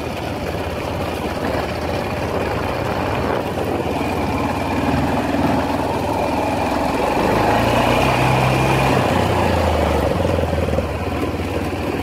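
Motorcycle engine running while riding, heard from the saddle. About seven seconds in it grows louder and its pitch rises for a couple of seconds before settling.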